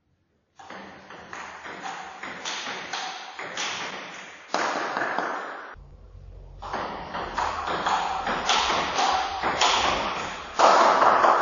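Table tennis rally: the celluloid ball clicks and taps rapidly off the bats and table. It plays in two stretches with a short break about six seconds in.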